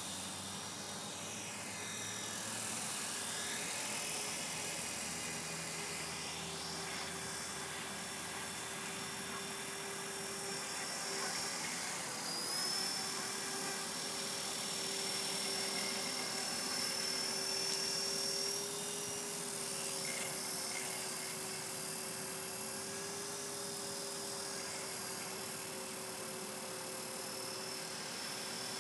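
E-flite Blade 450 electric RC helicopter hovering: a steady whine from its electric motor and rotor over the rush of the blades. The pitch wavers a little and dips briefly about twelve seconds in as the throttle is worked.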